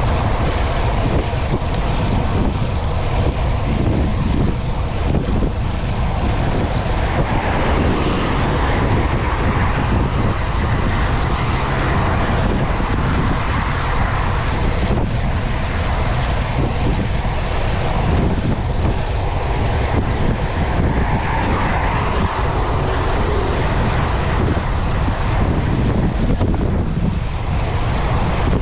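Steady rush of wind buffeting the microphone of a camera on a bicycle riding at about 40 km/h, swelling and easing a few times.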